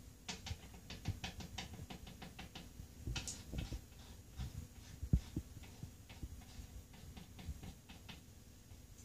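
Quick light taps on a wooden tabletop as powder is chopped into lines, several a second, then a sharp nasal sniff about three seconds in as a line is snorted through a rolled-up bill. A dull thump follows a couple of seconds later, then more scattered tapping.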